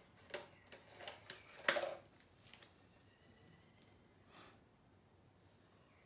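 Hands handling tools on a plastic-sheet-covered work table: a handful of short clicks and rustles over the first three seconds, the sharpest just under two seconds in, and one softer rustle a little past the four-second mark.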